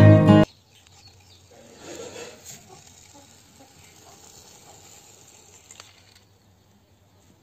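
Acoustic guitar music cuts off abruptly half a second in. After it, faint rolling and scraping of a small plastic toy car's wheels pushed by hand over rough pavement, a little louder about two seconds in.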